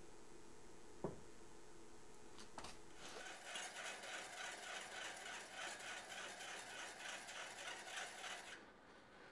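Metal lathe drilling with a bit fed from the tailstock: a rapid rhythmic scraping of the bit cutting into the spinning workpiece starts about three seconds in and stops suddenly near the end. A sharp click sounds about a second in.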